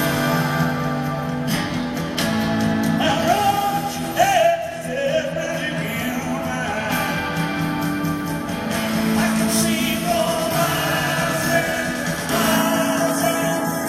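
Live rock band playing from the audience's side of an arena: electric and acoustic guitars, bass and drums, with a pitched line that bends up and down about four seconds in.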